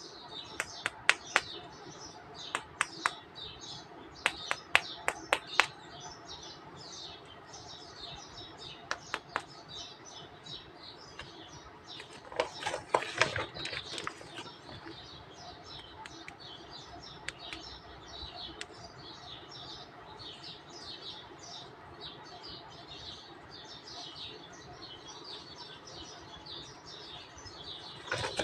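Many small birds chirping continuously, with sharp clicks and taps, several in the first few seconds and a dense cluster of them about halfway through.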